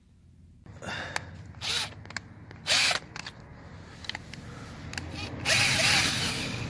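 A wire wheel brush on a power tool scrubbing rust off a steel car sill. It comes in short, uneven bursts from about a second in, then runs steadily and louder near the end.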